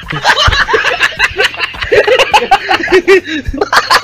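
Laugh track: several people laughing and chuckling together at a punchline.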